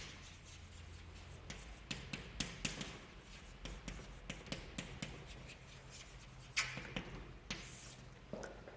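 Chalk writing on a blackboard: a quick run of short taps and scratches as letters are formed, with a couple of longer, louder scrapes near the end.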